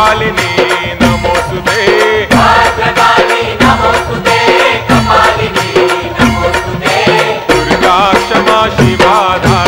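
Indian devotional chant music: a melody with wavering pitch over a steady percussion beat.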